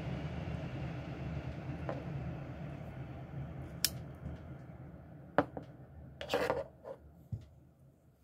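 A Schrade stockman pocket knife's blades clicking as they are worked open and snapped shut: a few sharp, separate snaps in the second half. Under them, a low rumble fades out over the first several seconds.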